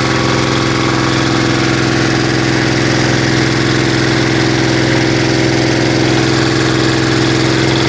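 Animal-feed pellet mill running steadily, its motor giving an even, constant low hum with no change in pace.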